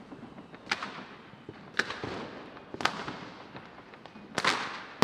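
Gunshots in a war soundscape: single sharp cracks about a second apart, each trailing off in an echo, then a louder, longer-ringing blast near the end.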